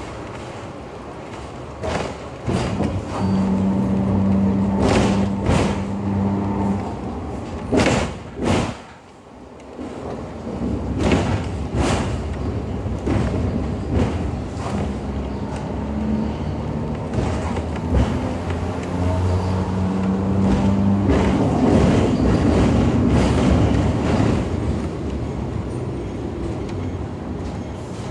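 Hong Kong double-decker tram running along street tracks, heard from on board: a steady low hum comes in twice for several seconds at a time, over a rumble and many sharp knocks and rattles from the car body and wheels on the rails.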